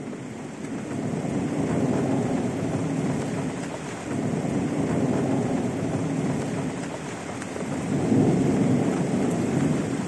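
Thunderstorm: steady rain with long rolls of thunder that swell and fade, loudest about two seconds in and again near the end.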